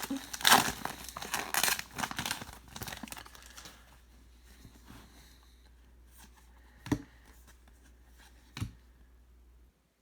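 Foil trading-card pack wrapper crinkling and tearing as the pack is torn open, for the first few seconds. Then two short knocks, about a second and a half apart.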